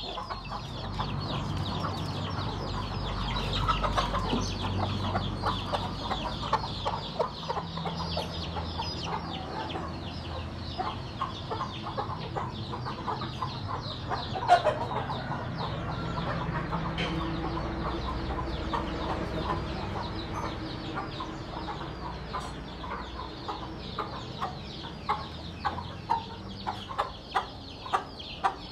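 Chickens clucking and calling with many short, repeated calls, over a low background rumble that fades somewhat after about twenty seconds.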